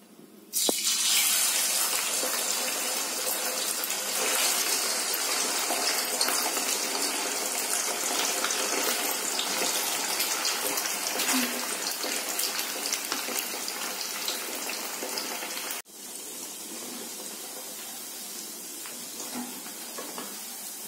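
Cubes of boiled potato dropped into hot oil in a kadai, setting off a loud, fizzing deep-fry sizzle with many small pops that slowly settles. Near the end it drops suddenly to a quieter, steadier sizzle.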